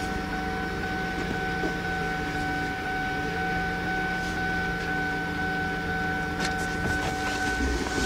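A steady machine hum with a constant high whine, unchanging throughout, and a few light knocks near the end.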